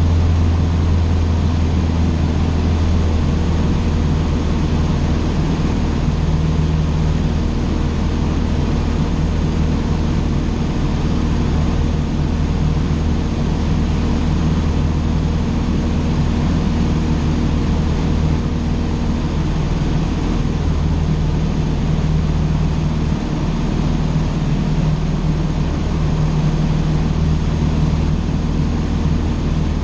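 Cessna 150's four-cylinder Continental O-200 engine and propeller running at a steady setting, a constant drone.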